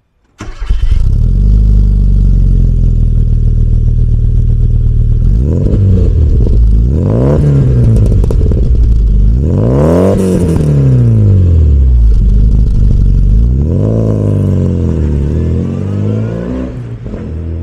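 1997 Rover Mini's 1.3-litre MPI four-cylinder engine through a custom sports exhaust: idling, then revved several times, each rev rising and falling in pitch, the biggest about ten seconds in. Near the end the car pulls away and the sound fades.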